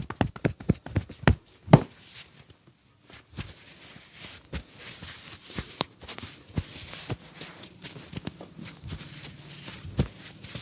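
A barber's hands massaging skin: a few sharp slaps in the first two seconds, then softer rubbing with scattered light taps, and one more slap near the end.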